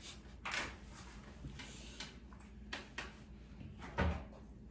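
A few short clicks and knocks over a faint low hum, the loudest about four seconds in.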